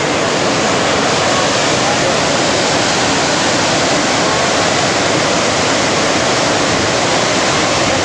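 Dhuandhar Falls, a large waterfall on the Narmada River, pouring over rock in full, forceful flow: a loud, steady rush of water.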